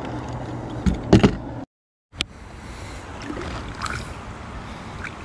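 A bass being released over the side of a boat: a few loud splashes and knocks about a second in, then the sound cuts out for half a second, followed by soft water sloshing and trickling beside the hull as the fish is held in the water.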